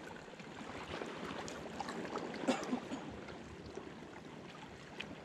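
Shallow seawater lapping and trickling over a reef, an even wash scattered with small ticks, with one brief louder sound about halfway through.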